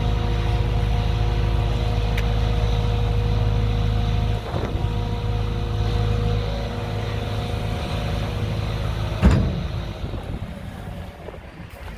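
JCB JS200W wheeled excavator's diesel engine running steadily, dropping in level about four seconds in. A single sharp knock about nine seconds in, after which the sound grows quieter.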